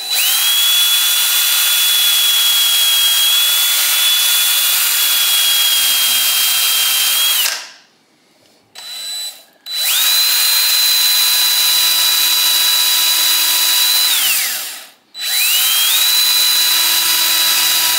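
Die grinder spinning a red Scotch-Brite-type Roloc surface-conditioning disc against an aluminium wheel rim to take out a small nick: a loud high whine with hiss. It runs three times, for about seven seconds, then four, then two, and winds up and down in pitch at each start and stop.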